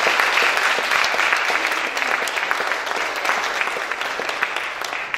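Congregation applauding: a dense patter of many hands clapping, easing off gradually toward the end.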